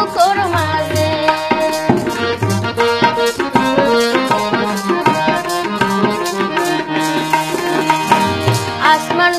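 South Asian music with tabla drumming a brisk, steady rhythm under melodic instruments, in an instrumental passage between sung lines.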